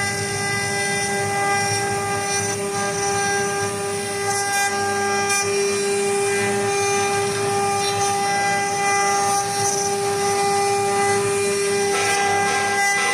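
Single-head 1325 CNC router running, its spindle giving a steady high whine over a rough, noisy rasp.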